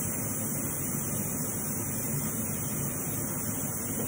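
Steady rushing hiss of steam venting from a Pampered Chef Quick Cooker's pressure-release valve during a quick release, with the range hood fan running.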